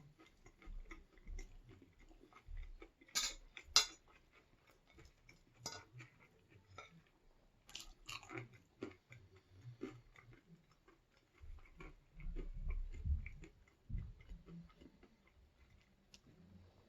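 A person chewing and biting food close to the microphone. There are many small sharp crunches and clicks, the loudest pair about three to four seconds in, and a stretch of duller, lower chewing noise later on.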